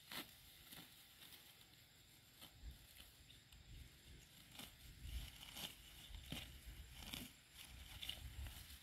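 Near silence: faint, scattered light rustles and clicks over a low rumble, a little busier in the second half.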